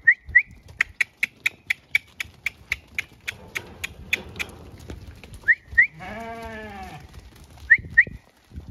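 Zwartbles sheep in a handling yard: one long bleat about six seconds in. Before it comes a quick run of sharp clicks, about four a second, and short high squeaks come in pairs at the start, in the middle and near the end.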